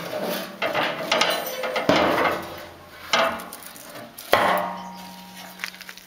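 Hinged rusty steel lid of a homemade barbecue smoker being handled and shut: a series of metal knocks and clanks, the loudest about four seconds in, followed by a ringing hum from the steel.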